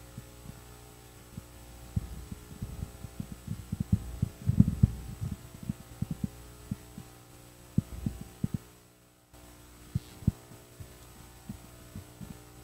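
Handling noise from a handheld microphone pressed against a Bible as its pages are thumbed through: irregular low thumps and rubs over a steady electrical hum. The hum drops out briefly about nine seconds in.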